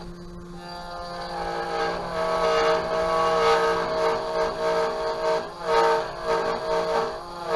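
A chord of several steady tones, like a multi-note horn, swells up and holds, then sounds in a few short blasts near the end, over a steady electrical hum.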